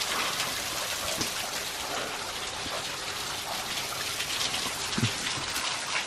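Small waterfall and shallow stream falling and splashing over rock at low flow: a steady, even patter of water.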